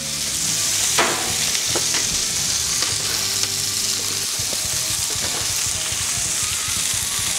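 Beef burger patties sizzling steadily in bacon grease on a gas flat-top griddle, with a single light knock about a second in.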